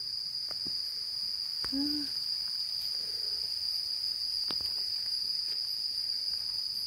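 Night crickets chirring in a steady, unbroken high-pitched chorus, with a short low tonal sound about two seconds in.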